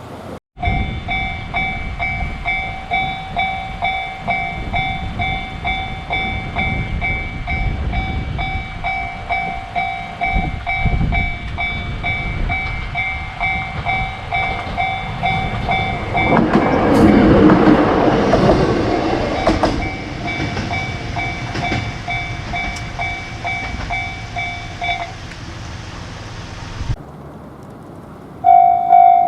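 Japanese railway level-crossing warning bell ringing its repeating kan-kan as a train rumbles through, loudest for a few seconds about two-thirds of the way in. The bell stops a few seconds before the end, and after a break a crossing bell starts ringing again, louder.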